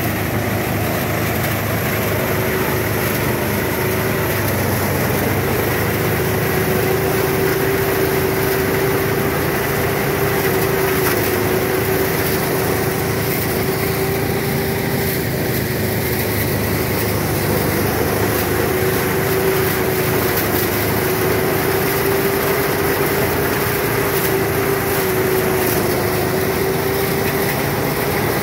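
Engine-driven rice thresher running steadily, a constant machine hum with a whine that wavers slightly in pitch.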